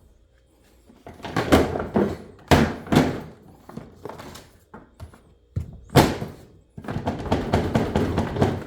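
Hard plastic thunks and clacks of a Ryobi LINK stackable tool box being set onto the stack and pushed down onto its latches: a few sharp knocks, then a stretch of clattering near the end. The box is being pressed to make it lock in, which it often fails to do.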